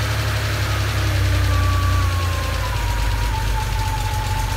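Freshly rebuilt 1980 Porsche 911SC air-cooled flat-six running just after being started, its revs settling down to idle about two seconds in. A thin whine rides on top and slides slightly lower in pitch as the revs drop.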